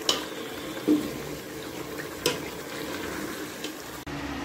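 Metal spoon in a pot of thick karahi gosht curry, clinking sharply against the metal pot a few times over a steady watery hiss.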